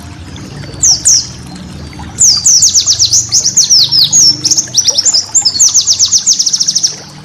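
White-eye (pleci) song: two high descending notes, then a rapid burst of sharp downward-sweeping chirps that speeds up into a fast trill, the 'tembakan' rapid-fire phrase prized in pleci training recordings.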